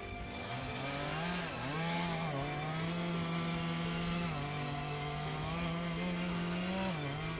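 Chainsaw engine running at high revs, its pitch holding steady and then dipping and rising again several times as the throttle or the load on the chain changes.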